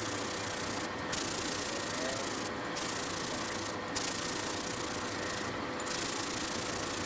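Abrasive rubbing against a metal part spinning in a lathe: a steady scraping hiss that briefly lets up about four times, over a faint steady hum from the machine.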